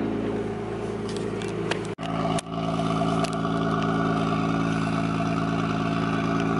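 Nissan R32 Skyline's engine idling steadily. About two seconds in there is a brief dropout, and the idle then carries on, heard from behind the car at the exhaust.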